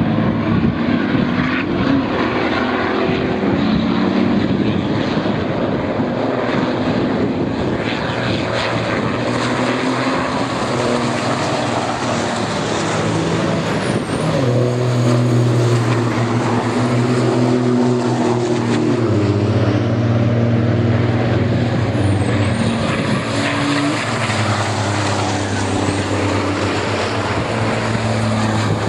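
Racing trucks' diesel engines running hard as a pack of trucks races past, a continuous loud engine drone with a deep note that shifts in pitch several times.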